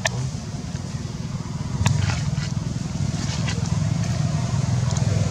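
A motor engine running steadily with a low, rapidly pulsing rumble, getting louder about two seconds in, with a few sharp clicks over it.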